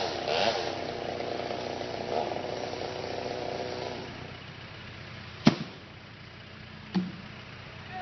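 Chainsaw running steadily up in the tree, dying away about four seconds in. Then a sharp thud, the loudest sound, and a smaller one near the end: cut pieces of the oak trunk hitting the ground.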